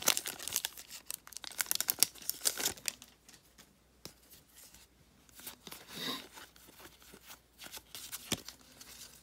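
Trading card pack wrapper tearing and crinkling, with cards sliding against each other as they are handled. Busy for the first few seconds, then scattered and quieter.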